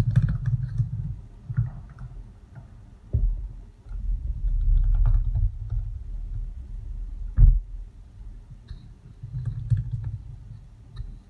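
Low rumbling handling noise as a big crock pot insert is tipped and fluid soap batter pours out into a plastic measuring bowl, with a few sharp knocks of the pot, the loudest about three seconds in and about seven seconds in.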